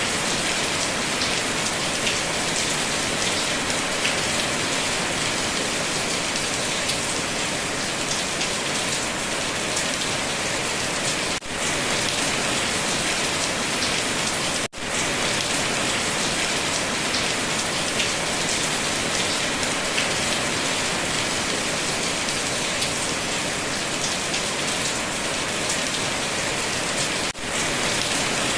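Steady heavy rain falling on a surface, an even dense patter of drops. It dips briefly three times.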